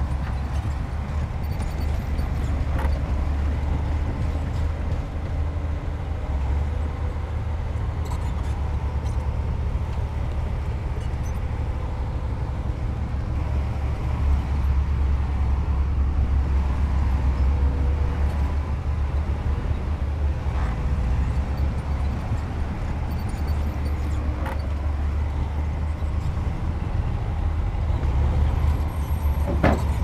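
Heavy diesel machinery running: a steady low engine rumble with a faint whine above it that dips briefly in pitch about two-thirds of the way through, and a few short knocks, the sharpest near the end.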